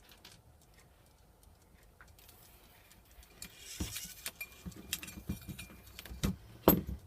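Small robot-arm kit parts clicking, knocking and rattling as a servo is fitted by hand. Quiet at first, then irregular clicks and rattles from about halfway, with the loudest knock near the end.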